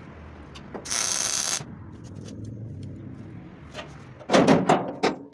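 Metal repair work on a truck cab floor: a short, loud hiss about a second in, then a run of loud, sharp knocks near the end.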